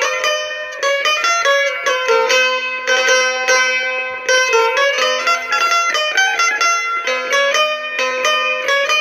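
Çifteli, the Albanian two-string long-necked lute, played solo with a pick: a quick plucked melody over a low drone note that comes and goes.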